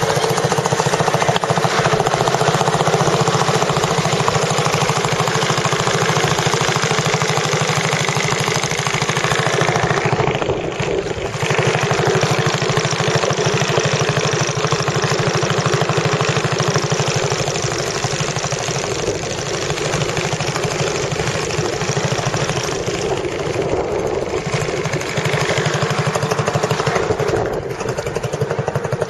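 An engine running loudly and steadily at a constant speed, with a fast, even firing rhythm. It eases briefly about ten seconds in and again near the end.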